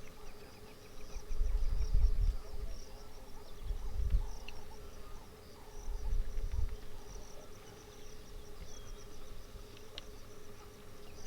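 Savanna insects chirping in fast, even pulses over a steady high drone. A few low rumbles come and go in the first seven seconds and are the loudest part.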